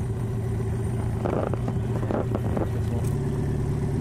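Boat's outboard motor running steadily at a constant low pitch, with a few short noises over it about a second in and again just past two seconds.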